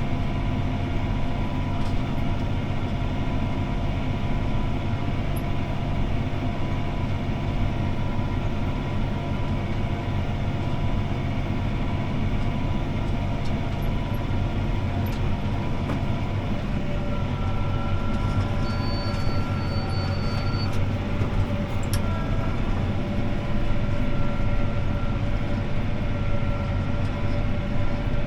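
CLAAS ARION 650 tractor's six-cylinder diesel running steadily under load while pulling a disc harrow, heard from inside the cab as a constant low drone with whining tones. Past the halfway point, higher whining tones join in.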